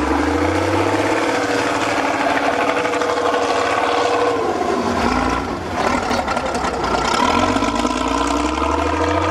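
Six-wheeled off-road trial truck's engine revving hard under load as it climbs a steep dirt bank. The revs climb over the first second and hold high, sag about five seconds in, then climb again.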